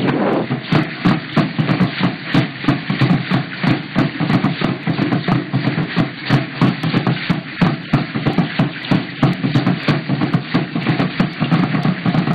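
Drum beaten in a steady, even rhythm, about two to three beats a second, as in Indigenous ceremonial drumming.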